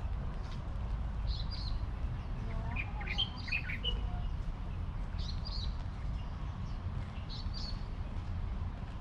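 Birds chirping: a short high double chirp repeated about every two seconds, with a busier flurry of calls about three seconds in, over a steady low rumble.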